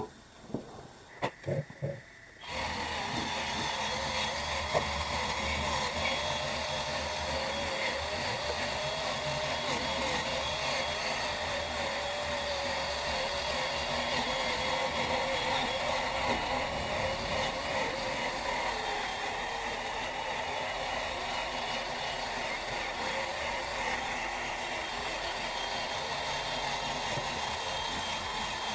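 Workpro 12-volt cordless 3-inch sander/polisher starts up about two and a half seconds in, after a few light clicks, and runs steadily sanding a plastic headlight lens with a 5000-grit disc. Its motor pitch wavers slightly as the load changes.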